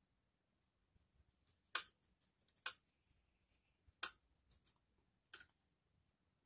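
Watercolour brush tapping and clicking against the palette while paint is mixed: four sharp clicks about a second apart, with a few fainter ticks between them.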